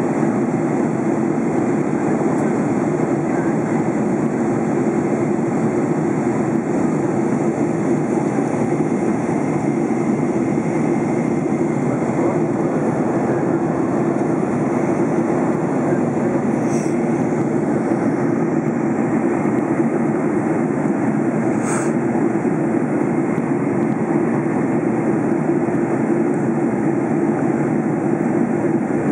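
Boeing 747-400 cabin noise in flight: a steady, even rush of airflow and engine noise with a deep hum underneath.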